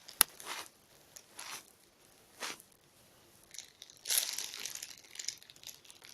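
Light crinkling and rustling as squishy toys are handled, with a sharp click just after the start and a longer stretch of crinkling about four seconds in.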